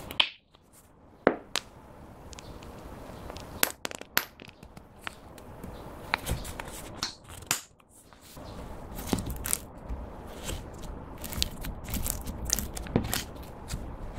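Close-up handling noises: a plastic cosmetics tube handled and squeezed, with sharp clicks near the start. In the second half, clear slime is pressed down by hand over crushed pressed eyeshadow, giving dense small crackling and crunching.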